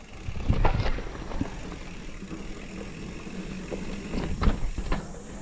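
Mountain bike riding down a rough dirt trail: tyres rolling over roots and ruts, the bike rattling, with sharp knocks and jolts about half a second in and again around four and a half to five seconds.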